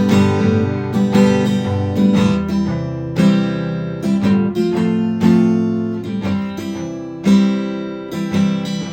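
Acoustic guitar strumming chords in a steady rhythm, an instrumental passage between sung verses.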